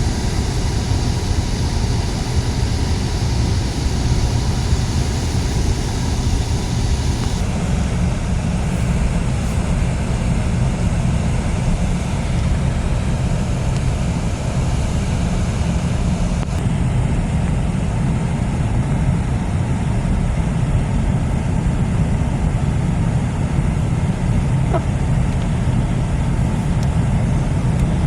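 Car driving along a highway: a steady low rumble of tyres and engine. The higher hiss drops away suddenly about seven seconds in and again about sixteen seconds in.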